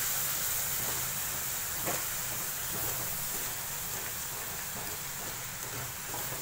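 Sugar syrup boiling with a steady hiss in a non-stick pan while a wooden spatula stirs it. There is one short knock about two seconds in.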